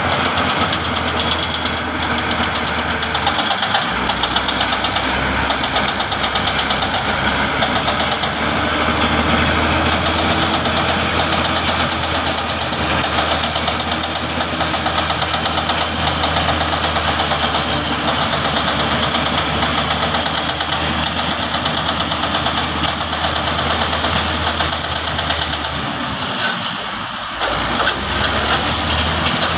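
Diesel engine of heavy earthmoving machinery running steadily with a regular pulsing clatter, dipping briefly near the end.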